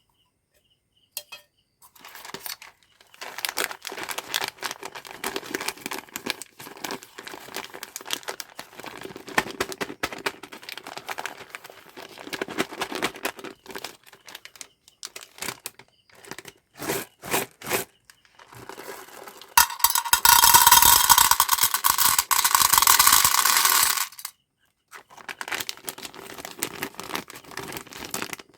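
Hands unwrapping candy packaging: plastic and foil wrappers crinkling and tearing in irregular handling bursts, with a few sharp clicks in the middle. This is followed by a louder, continuous rustle lasting about four seconds.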